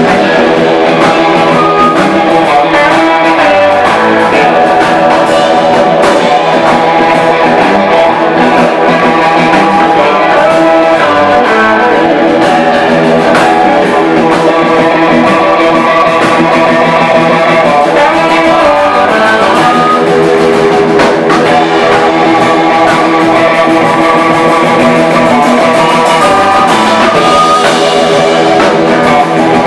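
Live blues-rock band playing loud and steady: electric guitars over a drum kit.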